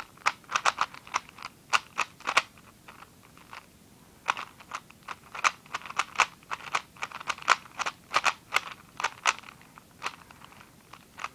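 3x3 plastic speedcube being turned fast by hand during a solve: rapid, irregular clicks and clacks of the layers snapping round, with a short lull about three seconds in.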